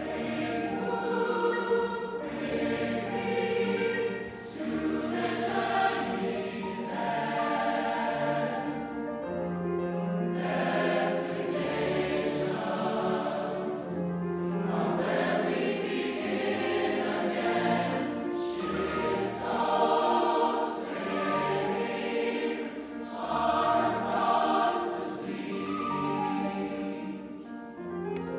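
Large mixed choir singing in harmony, in sustained phrases with brief breaks between them.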